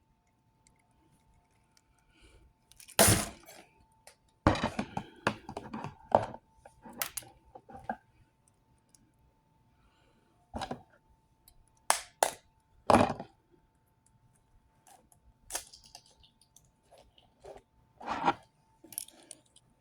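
Eggs being cracked and separated over a bowl: scattered knocks, shell cracks and clinks of shell and dish, some in short clattery runs, over a faint steady hum.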